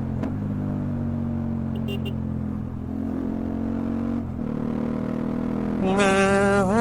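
Motorcycle engine running steadily under way. Near the end a loud, pitched, wavering tone comes in over it.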